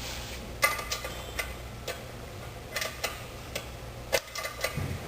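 Irregular metallic clicks and clinks of a wrench working the bolts that hold the Multitool belt grinder's tensioner assembly to its bracket, over a steady low hum.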